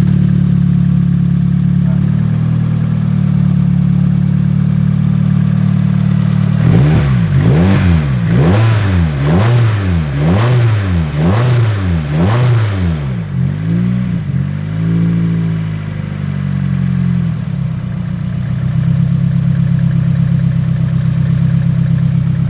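Nissan Silvia S14's SR20 four-cylinder engine idling with a misfire that a newly fitted ignitor has not cured. About a third of the way in it is revved about six times in quick succession, each rev rising and falling. One smaller blip follows, and then it settles back to a steady idle.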